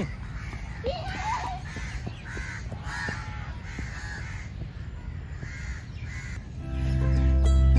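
Crows cawing over and over, about two calls a second. Background music comes in near the end.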